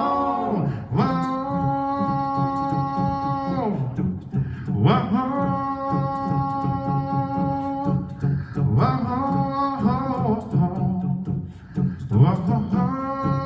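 Gospel vocal group singing, four long held chords that each slide up into the note and fall away at its end, over a steady pulsing low bass part.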